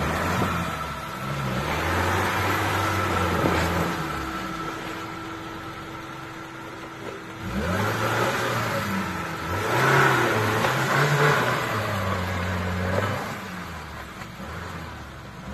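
Small Suzuki 4x4's engine revving up and down in surges as the stuck vehicle tries to drive out of deep snow, easing off about halfway through, then pulling hard again.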